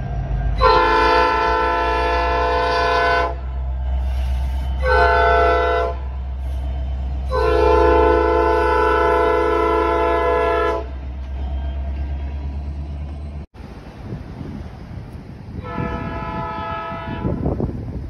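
EMD SD70M-2 diesel locomotive's horn sounding several tones at once in a long blast, a short blast and another long blast, over the low rumble of its diesel engine. After a break, one more shorter blast comes near the end.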